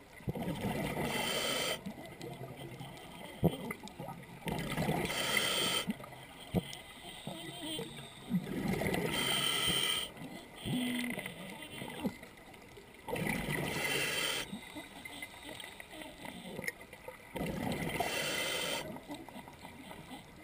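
A scuba diver breathing through a regulator, about one breath every four seconds, five in all: each inhale is a hiss through the demand valve, followed by the bubbling gurgle of exhaled air.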